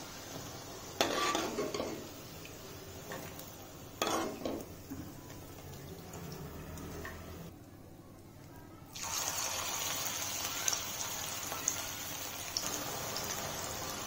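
Hot oil sizzling in a kadhai as spinach bhajji (pakoras) deep-fry, with two short clatters of the metal ladle and strainer about one and four seconds in. The sizzle nearly drops out for a moment, then comes back louder and steady as fresh batter goes into the oil.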